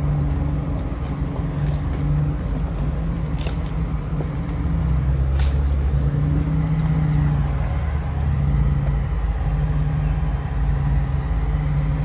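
Off-road vehicle engine running at low speed along a rough dirt trail: a steady low drone, with a couple of sharp knocks or rattles around the middle.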